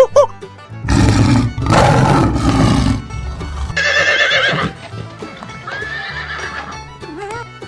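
A horse whinnying: a noisy, breathy stretch first, then a quavering neigh about four seconds in, over light background music.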